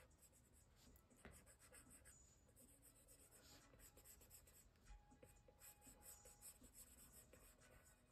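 Faint scratching of a stylus tip stroking across an iPad's glass screen in short, irregular sketching strokes, with a few light taps.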